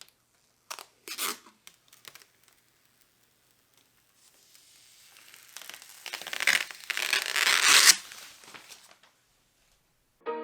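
A tearing sound: a few short rips about a second in, then a longer tear that builds over a few seconds and stops suddenly.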